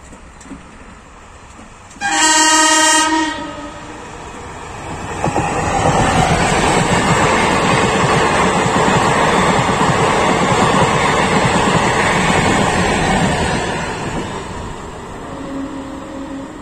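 A DEMU (diesel-electric multiple unit) train sounds a loud horn blast of about a second, starting about two seconds in. The train then passes close by, its wheels clattering over the rail joints for about nine seconds before the noise fades. A shorter, fainter and lower horn sounds near the end.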